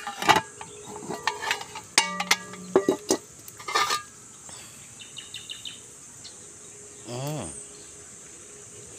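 Aluminium pot lid and metal ladle clanking and ringing in a run of clatters over the first four seconds as the simmering pot is uncovered. A steady high-pitched insect drone runs underneath.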